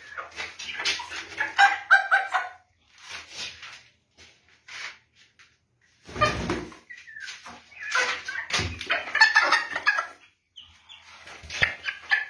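Young Polish crested chickens clucking and calling in irregular bursts of short, harsh notes, with gaps of a second or so between the bursts and a few low thuds among them.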